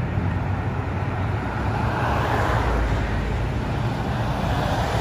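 Street traffic noise with a steady low engine rumble. A vehicle passes, swelling to its loudest about two and a half seconds in and then fading.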